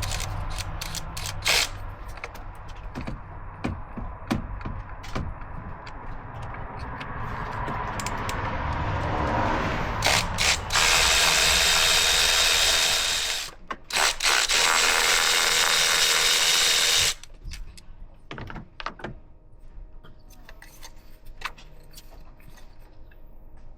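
Ratchet and socket clicking and turning as a spark plug is worked out of the engine, with two bursts of loud, steady hiss lasting about three seconds each, starting about ten seconds in.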